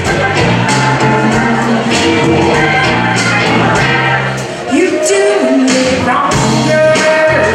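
Live electric blues band playing: drums, bass, electric guitar and keyboard in a steady groove. About four and a half seconds in the band thins out and a woman's lead vocal comes in, sliding up into a line and holding a long note near the end.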